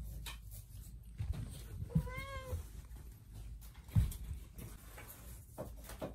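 A domestic cat meows once, a short call that rises and falls, about two seconds in. A few low thumps sound around it, the loudest about four seconds in.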